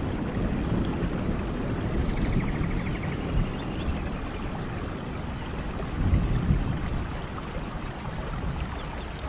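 Steady rain and running water with gusty low rumbles. Over it, a small animal repeats a short call of three or four quick high notes about every four seconds, with a fainter pulsed trill lower down.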